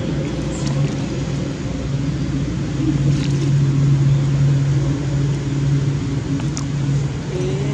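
A motor vehicle engine running with a steady, unchanging low hum.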